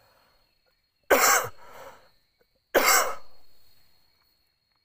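Two coughs about a second and a half apart, each sharp at the start and fading away over about a second.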